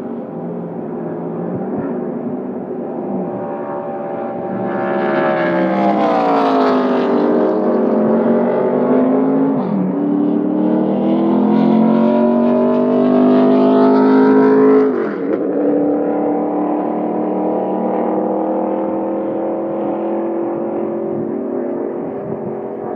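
ARCA stock car V8 engines running at speed, several engine tones at once. The pitch falls as a car goes by about six seconds in, and again sharply at the loudest point about fifteen seconds in, then settles into a steadier drone.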